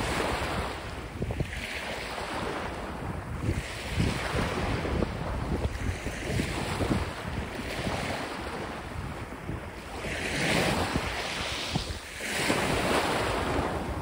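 Small sea waves breaking and washing up a sandy, pebbly shore, the surf swelling and easing every couple of seconds, with bigger surges in the last few seconds. Wind buffets the microphone with a low rumble.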